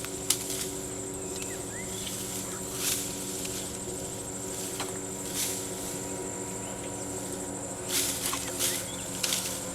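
Rainforest ambience: a steady high insect drone over a low, even hum, broken by about six short rustling noises.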